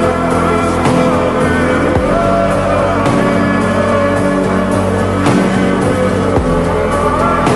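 Music: a slowed-down, reverb-heavy pop song with a steady beat.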